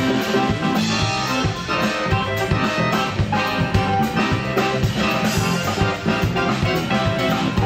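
Live band playing an upbeat tune on accordion, archtop guitar, electric bass and drum kit, with a steady drum beat.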